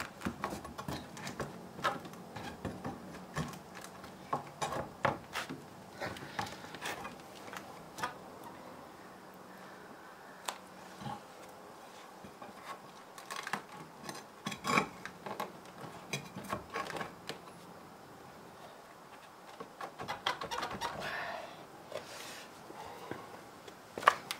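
Irregular knocks, taps and clatter of wood and a metal pry bar as an old barn sill plate is pried loose, with a brief scraping stretch near the end.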